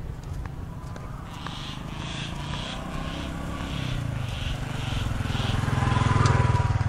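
A motor vehicle's engine grows steadily louder as it approaches and passes close by, loudest about six seconds in.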